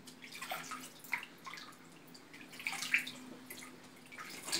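Bathwater splashing and dripping lightly in a plastic baby bathtub as a hand moves through the water while bathing a newborn. Irregular small splashes, loudest about three seconds in.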